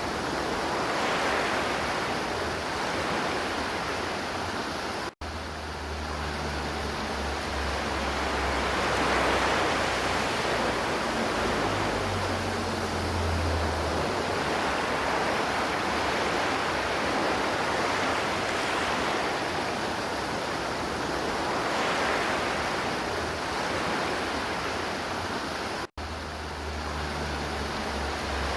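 River water flowing and rushing steadily. The sound cuts out for an instant twice, about five seconds in and again near the end, each time coming back with a low rumble underneath.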